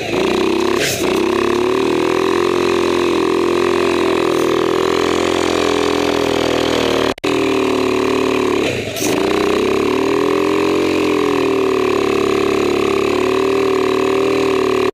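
ATV engine held at high revs with its wheels spinning while the quad is stuck in deep mud. The revs dip briefly about a second in and again about nine seconds in. The sound cuts out for a moment about seven seconds in.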